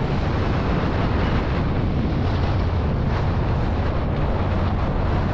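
Strong wind buffeting the microphone aboard a small sailboat in choppy water, a loud, steady rush with a heavy low rumble. The sound of water on the hull is mixed in.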